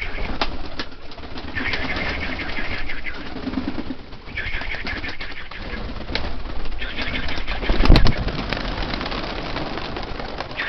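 Domestic pigeons cooing and flapping their wings at the loft, with repeated short clicks and rustles. Wind buffets the microphone, and there is a loud thump about eight seconds in.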